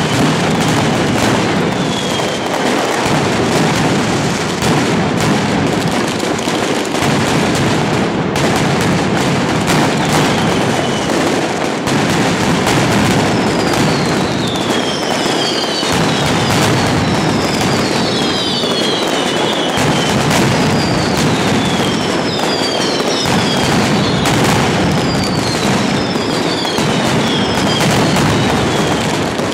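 Mascletà firecrackers (masclets) strung on overhead wires, exploding in a dense, unbroken barrage of bangs. From about halfway in, falling whistles keep cutting through the bangs.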